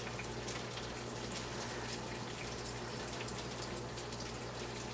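Breaded eggplant slices frying in hot grease in a skillet: a steady sizzle with frequent small crackles.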